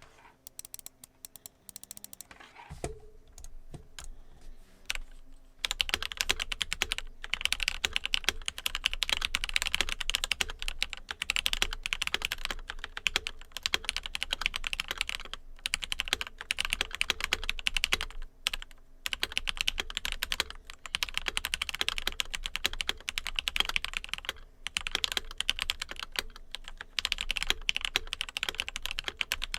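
Typing on a stock, unmodified Red Square Keyrox TKL mechanical keyboard: a few separate key presses at first, then about five seconds in, fast continuous typing with clacking keystrokes and a few short pauses.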